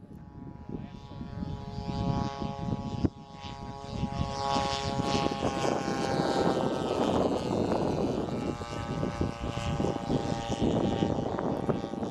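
Radio-controlled model airplane's motor and propeller running with a steady buzzing whine whose pitch shifts and grows louder about halfway through. A sharp click sounds about three seconds in.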